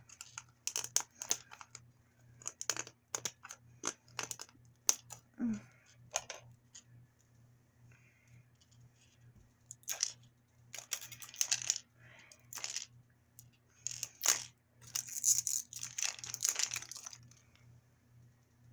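Toy packaging being torn open and crinkled by hand: a string of sharp rips and rustling crackles in bursts, with the longest runs of crinkling near the middle and toward the end.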